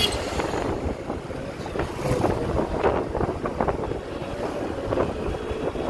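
Wind buffeting the microphone on a moving motorcycle, with the bike's engine running underneath.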